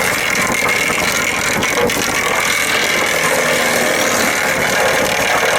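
Echo Bearcat wood chipper running, its engine hum under a loud, dense rushing noise that comes in at the start, with a few sharp cracks about a second and a half in.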